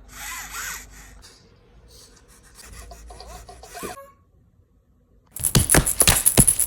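Eilik desktop robot playing a cute electronic sound effect: short squeaky chirps that glide up and down in pitch over the first four seconds. After a brief pause, a loud, fast run of sharp clicks starts a little past five seconds, about four or five a second.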